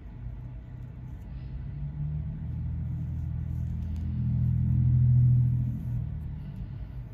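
A low rumble with a steady hum in it, swelling over a few seconds to a peak about five seconds in and then fading, like a motor vehicle passing. Faint scratching of a comb and fingernails on the scalp runs underneath.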